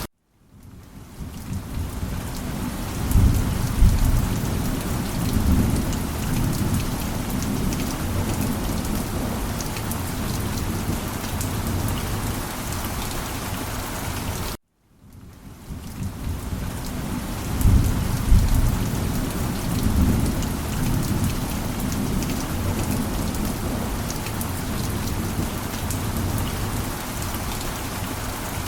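Heavy rain falling steadily, with a low rumble of thunder rolling in twice. The sound cuts out completely for a moment twice, just before each rumble, where the recording loops.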